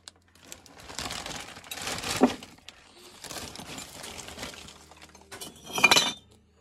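An old plastic bag rustling and crinkling as it is handled, then glass bottles clinking together near the end, a sharp knock with a brief ringing that is the loudest sound.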